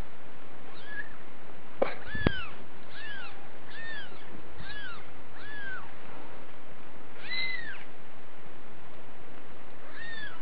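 Young kittens mewing in short, high, rising-and-falling cries, about two a second for the first few seconds, then a stronger one near the middle and another near the end. Two sharp clicks come about two seconds in, over a steady hiss.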